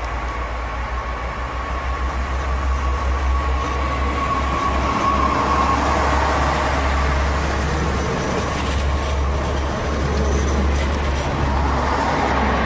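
TER AGC regional multiple unit running close past along the platform: a steady rumble of wheels and running gear, with a high whine that fades out about halfway through and faint high squeals later.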